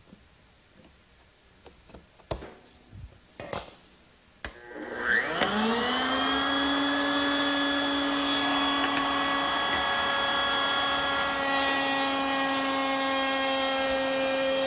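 A few knocks and clicks from handling the clamped featherboards and stock, then a table-mounted router fitted with a beading bit starts up about four and a half seconds in, rising in pitch as it spins up, and runs steadily at full speed.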